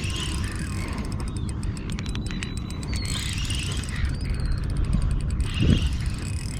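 Spinning reel clicking and ratcheting as a big fish is played on light line, with a rapid run of fine ticks over a steady low rumble.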